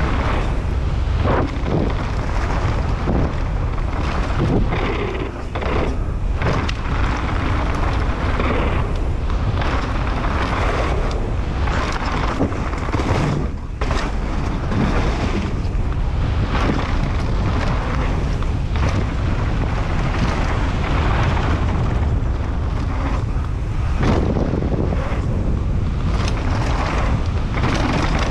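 Mountain bike running fast down a dirt downhill trail: steady wind buffeting on the microphone over a rumble from the tyres, with frequent short knocks and rattles as the bike goes over bumps.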